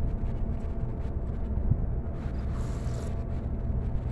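Heavy construction machinery running, a steady low drone, with a brief hiss near the middle.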